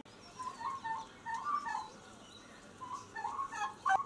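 A flock of domestic turkeys calling with many short, quiet chirping calls, with a lull in the middle and more calls again near the end.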